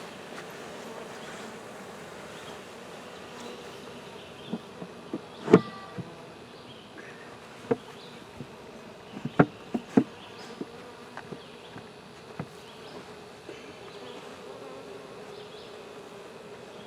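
A mass of honey bees buzzing steadily, a continuous hum, with a scattering of sharp clicks and knocks from about four to twelve seconds in, the loudest about five and a half seconds in.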